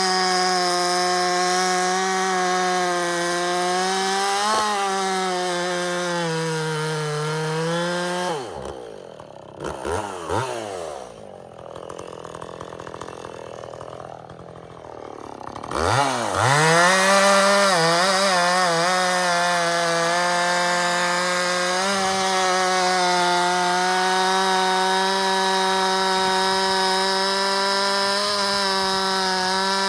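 Husqvarna 450 two-stroke chainsaw running at full throttle while cutting wood; about eight seconds in it drops back to idle for several seconds, then revs up again and runs at a steady high speed through the rest of the cut.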